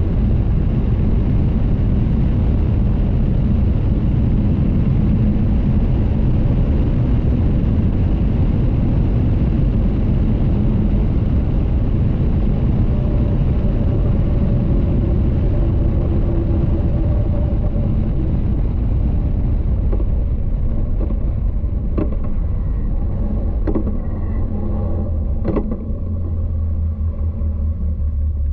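Cockpit sound of an open-top Caterham 620R at speed: wind rush mixed with its supercharged 2.0-litre four-cylinder engine running. Near the end a few sharp clicks come, then the rush eases and a steady low engine drone comes to the fore.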